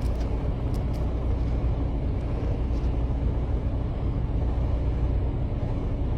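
Semi truck's diesel engine running: a steady low drone with an even hum underneath that does not change.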